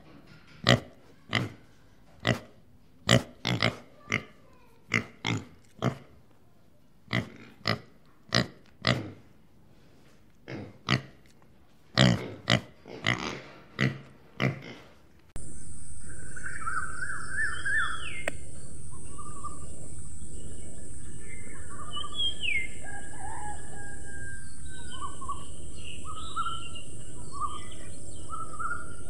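Pigs grunting, short grunts one or two a second. About halfway through the sound cuts to a steady outdoor hiss with birds chirping and calling.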